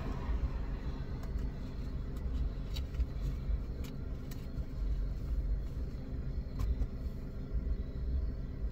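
Car engine idling, heard from inside the cabin: a steady low rumble, with a few faint clicks.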